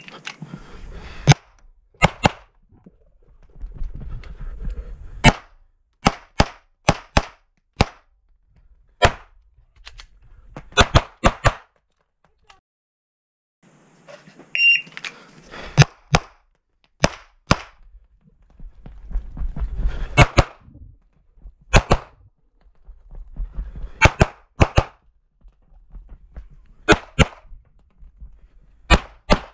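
Shot-timer beep, then strings of pistol shots from a compensated 9mm major SPS Vista Star open pistol, fired in pairs and quick runs with short gaps between. A second timer beep about fifteen seconds in starts another string.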